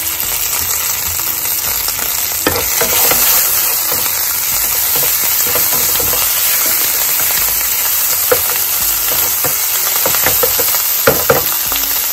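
Sliced red onion, ginger and garlic sizzling in hot oil in a nonstick frying pan while a spatula stirs them. The spatula knocks against the pan a few times, twice in quick succession near the end.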